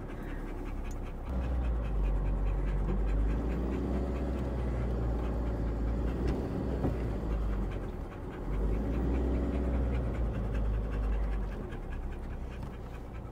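Isuzu D-Max ute's engine pulling slowly in four-wheel-drive low range over a rutty track, a deep rumble that swells about a second in, dips briefly past the middle and eases near the end.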